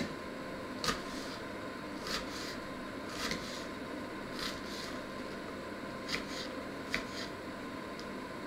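Small kitchen knife chopping an onion on a wooden cutting board: sharp, irregular taps of the blade on the board about once a second, with softer cutting sounds between, over a steady low hum.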